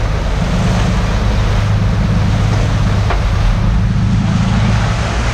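Sport-fishing boat's engine running at a steady drone, under the rushing of its wake water and wind on the microphone.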